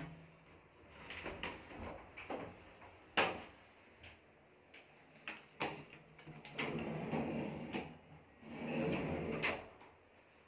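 Wardrobe furniture being handled: a few scattered knocks and clicks, the loudest about three seconds in, then a soft-close drawer run out and back twice on its runners, each run ending in a click.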